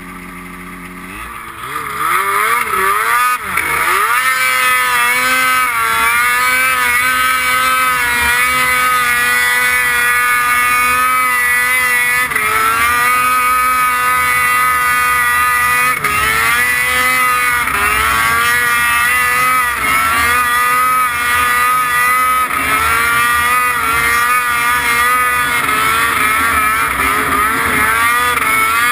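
Snowmobile engine revving up about two seconds in, then held at high revs under load as it climbs through snow, with short dips and recoveries in pitch every few seconds as the throttle eases and opens again.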